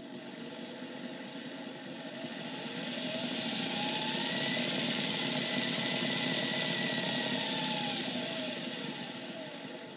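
Hornby 0-4-0ST model steam locomotive's electric motor and gears running on rolling-road rollers, a mechanical whine that rises in pitch and loudness as it speeds up, holds through the middle, then drops away as it slows near the end.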